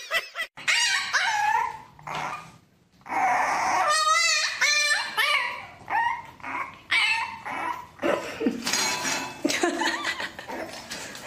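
A pet animal calling over and over: a series of short, high whines and yelps that bend and waver in pitch.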